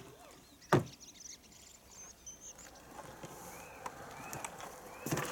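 A sharp knock about a second in, with small birds chirping, then a rumbling scrape that builds as the MF-70 walk-behind sickle-bar mower is rolled on its wheels down a plywood ramp. Clattering knocks come near the end.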